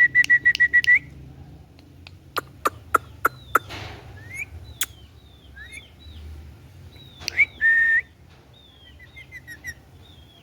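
Indian ringneck parakeet whistling and chirping. It opens with a quick run of repeated whistled notes, gives sharp clicks and short sliding chirps, then one held whistle about seven seconds in.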